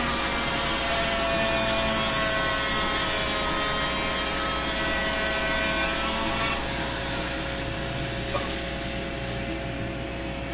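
Rotary power-carving tool with a small sanding drum sanding balsa wood, a steady motor whine over the hiss of the sanding, together with the vacuum drawing the dust off at the tip. About two-thirds of the way through the sanding hiss lessens while the whine runs on.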